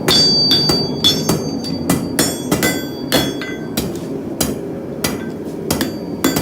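Hand hammer striking hot steel on an anvil while forging a knife blank: irregular blows about two a second, with a brief pause near the middle, each with a high metallic ring.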